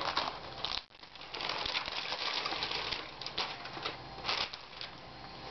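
Crinkly plastic sheeting rustling and crackling as it is handled, a dense run of crackles and sharp clicks after a brief lull about a second in.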